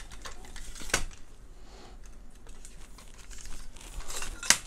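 Metal telescoping light stand being handled: scattered clicks and rattles of its sections and locking clamps, with a sharp click about a second in and another near the end.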